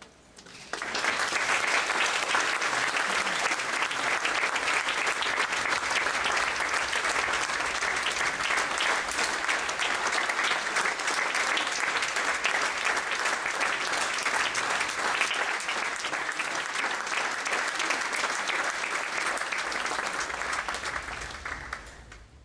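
Audience applauding: steady, dense clapping that starts suddenly about a second in and fades away near the end.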